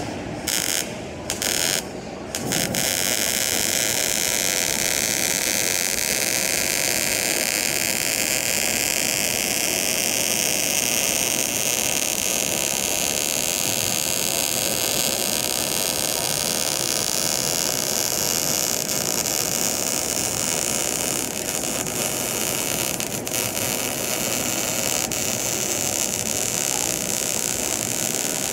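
MIG welding arc crackling and hissing. There are three short tack-like bursts in the first couple of seconds, then one long continuous bead that runs unbroken until it stops just before the end.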